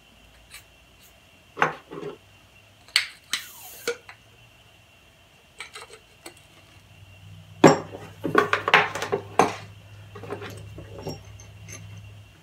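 Steel parts of a compressed-air engine cylinder (piston, push rod, cylinder) clinking, knocking and scraping against each other and the bench as they are handled by hand. The knocks are scattered at first, with a brief scrape a few seconds in, then come thick and loudest in a run of clanks from about halfway. A low hum sets in at about the same point.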